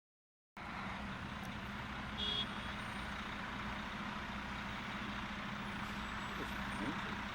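Steady traffic noise from vehicles on a city street, with a faint steady hum and a short high beep about two seconds in.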